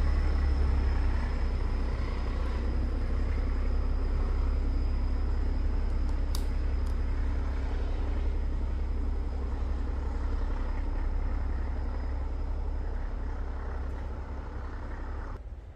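Diesel locomotive running with a steady deep rumble, slowly fading as the train draws away, then dropping off sharply just before the end.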